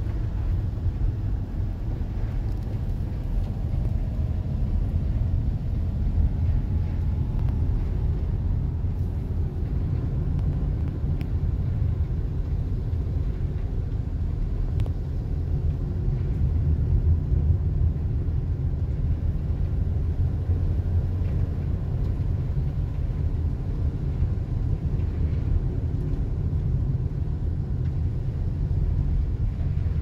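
Steady low rumble of a GMC box van's engine and tyres, heard from inside the cab while driving on a snow-covered road.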